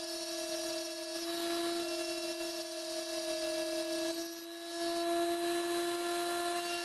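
HILDA 400-watt rotary tool running at a steady high whine, its small end mill cutting brass in tool-post milling on a lathe. The level dips briefly about four and a half seconds in.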